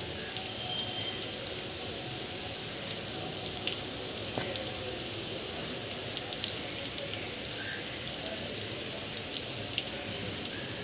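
Steady rain hissing down, with scattered sharper drops striking close by.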